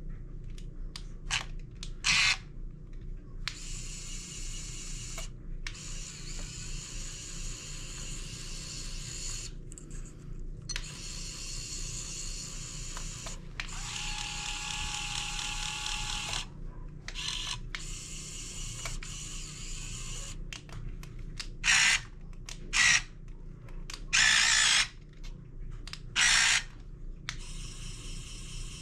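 Small electric drive motors and gearboxes of a 1:16-scale RC Cat 272D skid steer loader whirring in stop-start bursts as it is driven and works its attachments. There are a few longer runs and several short, loud spurts near the end.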